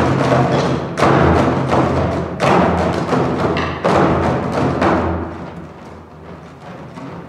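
Korean drums (buk) beaten in a booming rhythm, heavy strokes about every second or second and a half with quicker, lighter beats between, the drumming easing off over the last couple of seconds.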